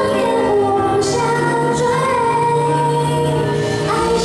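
A young woman singing a Mandarin pop song into a microphone over a backing track, amplified through the hall's loudspeakers; she holds one long note about halfway through.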